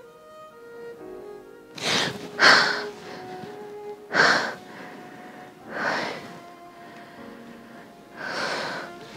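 Slow string music with five loud, sharp, gasping breaths laid over it, two close together about two seconds in and three more spaced out after.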